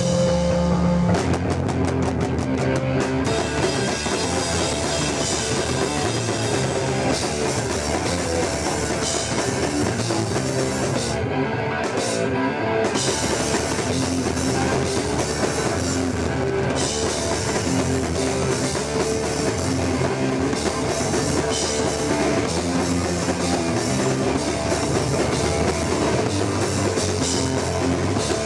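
Live rock band playing: electric guitar, bass guitar and drum kit with cymbals, running on without a break.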